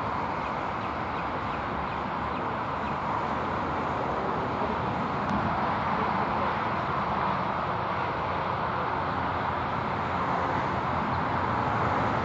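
Steady road traffic noise, an even hum of passing cars that swells slightly over the seconds.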